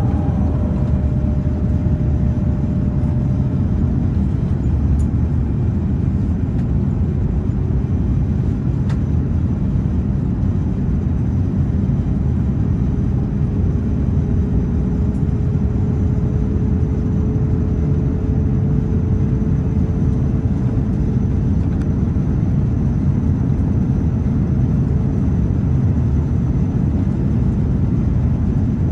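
Steady engine and airflow roar of an Airbus A350-900's Rolls-Royce Trent XWB engines, heard from inside the passenger cabin, with a faint steady whine over it.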